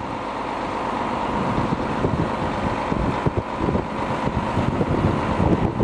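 Volvo truck's engine running steadily to drive its hydraulic loader crane, with a thin steady whine over it, as the crane swings a steel lifting beam on chains. Wind buffets the microphone, and the sound swells in during the first second.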